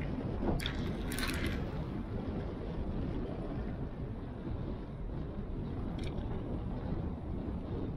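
Steady wind buffeting on a bicycle-mounted action camera's microphone, with the low rumble of tyres on asphalt. There are a few brief rattling clicks about a second in and again around six seconds.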